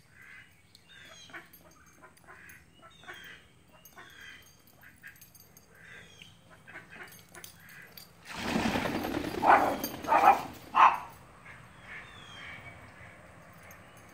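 Ducks quacking: three loud quacks a little past the middle, over a short rush of noise, with faint high bird chirps before them.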